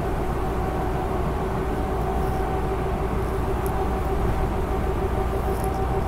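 Cabin noise inside a moving road vehicle: steady tyre and road rumble with a constant engine hum.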